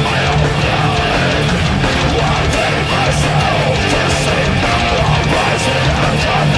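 Heavy metal music led by a Telecaster-style electric guitar playing a picked riff, steady and loud.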